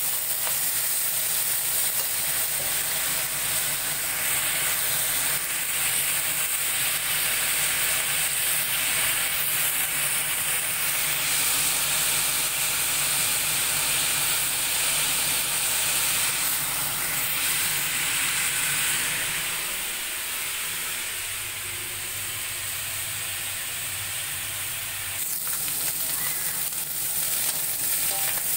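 Beef brisket pieces sizzling steadily in hot oil in a wok as they brown, with garlic, ginger and star anise. The sizzle eases a little past the middle, then picks up again near the end.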